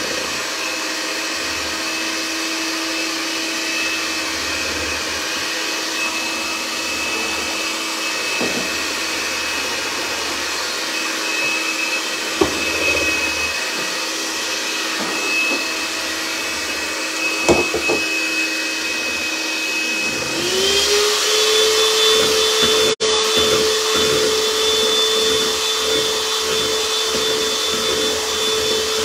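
Electric hand mixer running with its beaters in a plastic bowl, whipping cream, a steady motor whine. About twenty seconds in it is switched to a higher speed and the whine steps up in pitch; a couple of short knocks of the beaters against the bowl come before that.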